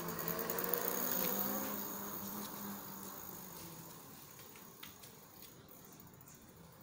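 Fat-tyre electric bicycle with a 48V 250W brushless hub motor riding past on concrete: a buzzing hum from tyres and drive, loudest about a second in, then fading as it rides away.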